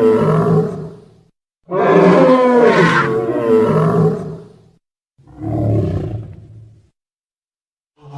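Dinosaur roar sound effects: a roar dies away in the first second, then a long roar of about three seconds, then a shorter, lower roar, with silent gaps between them.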